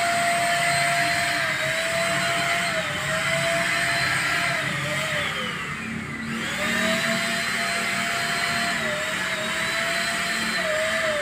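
Multipro ESP-800JY electric paint spray gun running with a steady high motor whine while spraying wall paint. About halfway through, the pitch sags and then climbs back up, with small dips here and there.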